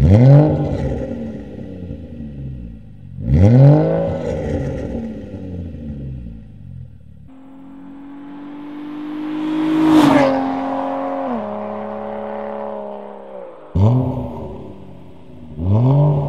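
Ford Fusion Sport's 3.5-litre Cyclone V6 through a 2.5-inch exhaust with resonator delete and MRT Interceptor mufflers. It is blipped twice from idle, then heard driving past, its note climbing as it nears and dropping in pitch as it passes midway, and near the end it is blipped twice more from idle.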